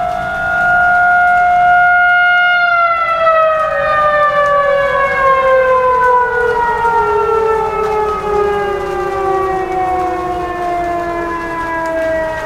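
Federal Signal 2001-series outdoor warning siren holding a steady tone, then, about two and a half seconds in, winding down in a long, slow fall in pitch.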